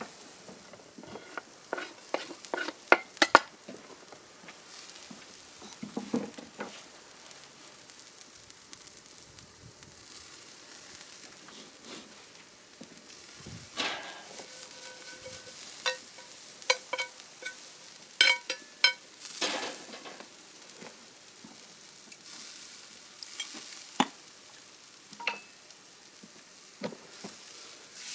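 Food sizzling softly in a pan while a metal utensil stirs and knocks against it. Some of the knocks ring on briefly, with a clear metallic tone.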